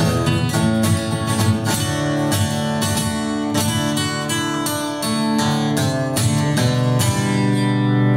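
Steel-string dreadnought acoustic guitar played solo, picked notes ringing over a steady bass line: the instrumental ending of a song after the last sung line.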